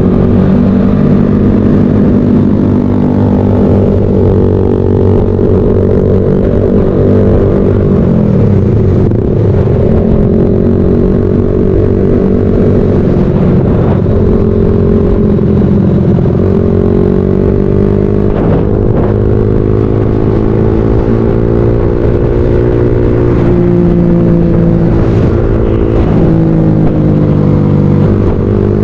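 Motorcycle engine and exhaust heard from the rider's own bike while riding. The engine note rises and falls several times with the throttle.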